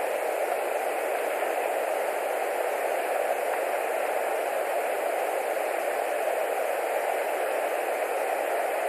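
Steady hiss of static with no other sound standing out: the nest camera's audio noise, even and unchanging.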